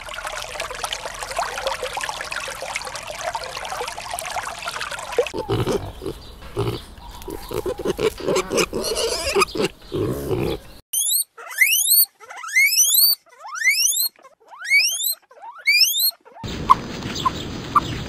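A small stream rushing over stones, then pigs grunting for about five seconds. After that comes a run of high chirps, each rising quickly, a little under twice a second. Near the end there is a steady hiss with a thin high tone.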